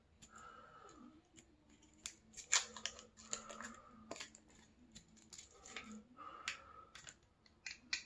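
Plastic film lid being peeled off a small jelly cup: an irregular run of crinkles and sharp crackles from the film.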